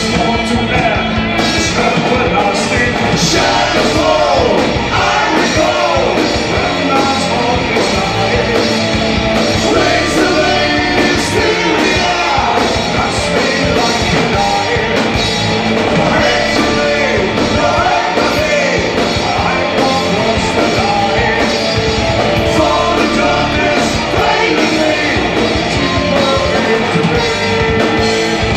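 A metal band playing live: distorted electric guitars, bass and a drum kit, with a vocalist singing over them.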